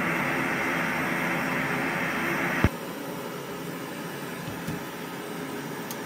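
PT-1 pressurised petrol stove burning under a silent burner bell and flame spreader from a Shmel stove: a steady, even hiss of the flame instead of the usual roar. About two and a half seconds in, a click and the hiss drops abruptly to a quieter level.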